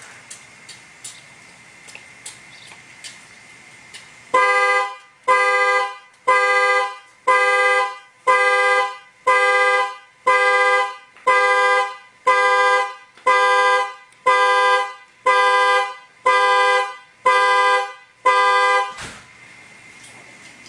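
Car alarm sounding the car's two-note horn in even pulses, about one honk a second, about fifteen in all, starting about four seconds in and stopping near the end. Faint ticks come before the honking.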